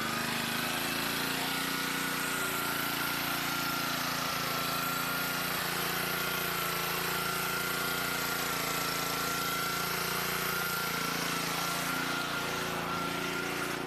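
Pressure washer running steadily, with a constant high whine over a hiss of spray.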